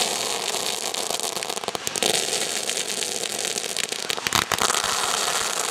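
Consumer firework going off at ground level, a dense continuous crackling of crackling stars, with a few louder sharp cracks a little past the middle.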